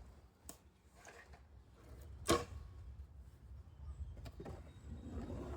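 A wooden board is laid down on the glue-up, with one sharp knock about two seconds in and a few faint clicks and taps around it, over a low background rumble.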